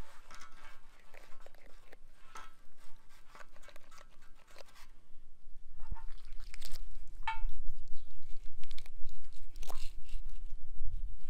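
Western diamondback rattlesnake skin being peeled off the body by hand, with irregular tearing and crackling. A low rumble joins about halfway through.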